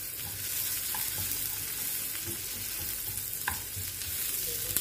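Sliced green chillies, lemon and ginger sizzling in hot butter in a small non-stick frying pan: a butter tadka being tempered. A wooden spatula stirs them, with light taps against the pan, one stronger about three and a half seconds in.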